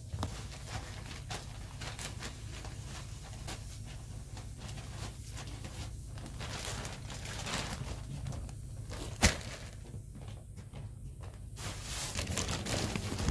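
Fine pine wood shavings pouring from a bag onto a wooden coop floor and being scuffed and spread with rubber boots: rustling and scraping, over a steady low hum. One sharp knock comes about nine seconds in.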